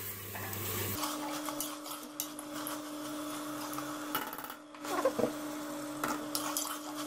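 Metal ladle scraping and clinking against the inside of an aluminium pressure cooker, stirring chicken and onions as they fry in oil, in irregular knocks and scrapes.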